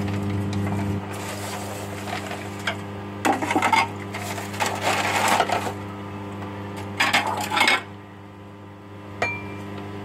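A metal spoon scraping and clinking against a ceramic bowl as a thick paste is stirred and scooped, in three short bouts, with a single click near the end. A steady low electrical hum sits underneath.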